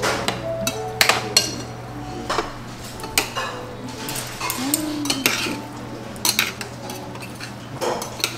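A metal spoon and chopsticks clinking and scraping against a metal bibimbap bowl as the rice and vegetables are mixed, in quick irregular clinks. A steady low hum runs underneath.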